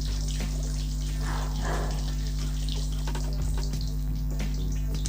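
Fennel seeds and black peppercorns frying in hot oil in a kadai, with a steady sizzle and scattered small pops and crackles as the peppercorns burst. A steady low hum runs beneath.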